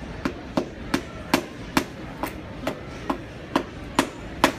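Steady hammer blows, about two and a half a second, each a sharp knock with a short ring, over barn background noise.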